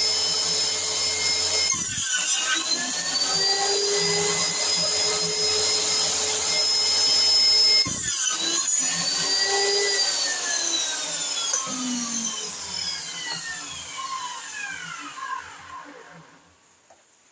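Electric motor of a homemade jointer and table saw running with a steady whine. Twice, about 2 and 8 seconds in, a click is followed by a dip in pitch as the motor slows, and it spins back up each time. About 10 seconds in it is switched off, and the whine falls in pitch and fades as the blade and cutterhead coast to a stop.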